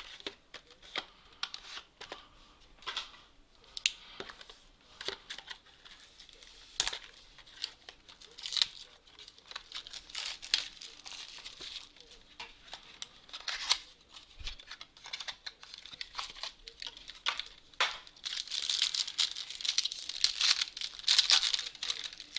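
Plastic wrapping crinkling and being torn off a box of trading cards, in irregular crackles that grow denser and louder near the end.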